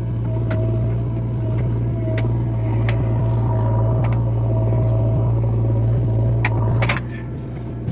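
JCB earthmover's diesel engine running steadily under work, rising in level after the first half second and easing back about seven seconds in, with a few sharp knocks over the top.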